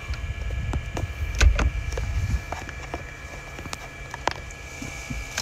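Scattered small knocks and clicks from people shifting about inside a car, over a low rumble that fades about two and a half seconds in.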